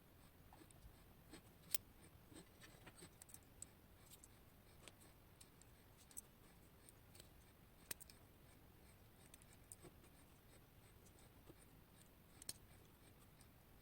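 Faint, scattered small clicks and light scratching as the parts of a West 955 Japanese high-pin-count lock are handled while it is taken apart. A few sharper clicks stand out: one a couple of seconds in, one about eight seconds in and one near the end.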